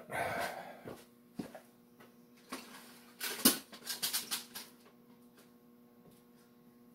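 Rummaging for small machine screws among metal parts: a brief rustle, then scattered clicks and a cluster of clacks and rattles, the sharpest about three and a half seconds in. A steady low hum runs underneath.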